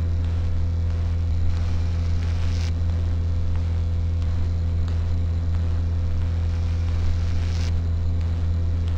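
A steady low hum with a few higher overtones, unchanging throughout.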